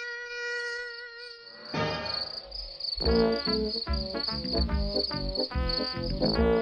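Mosquito whine, a steady buzzing tone, that stops about two seconds in. Music with a steady beat then takes over. A constant high cricket chirping runs underneath throughout.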